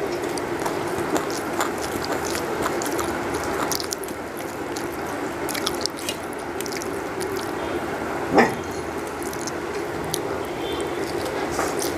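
Close-up chewing and small mouth clicks as rice and curry are eaten by hand, with fingers working the food on a steel plate, over a steady low hum. One short, sharp, louder sound comes about eight seconds in.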